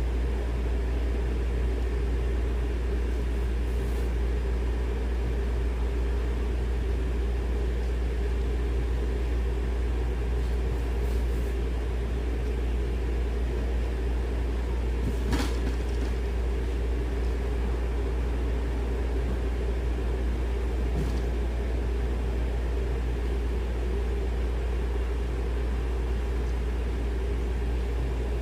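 Steady low machine hum with one sharp click about halfway through.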